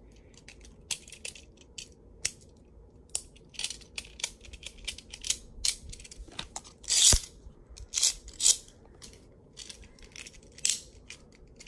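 Vanish Fafnir Beyblade spinning in a clear plastic stadium. It makes irregular ticks and scrapes, with sharper clacks about seven and eight and a half seconds in.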